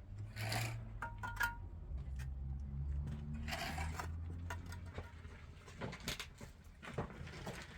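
Scraping and rubbing of a hand tool on a hard surface in two spells, with scattered clicks and knocks, over a low steady hum.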